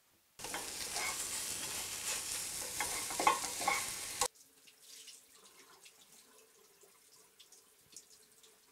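Food sizzling and frying in a pan on a stove, with some crackles; it starts suddenly and cuts off abruptly after about four seconds. A faint hum with scattered light clicks follows.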